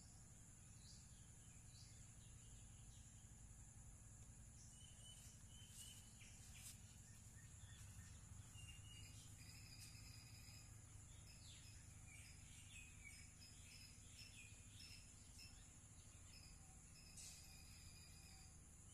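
Faint outdoor nature ambience: a steady, high-pitched insect drone, with short bird chirps coming in from about five seconds in.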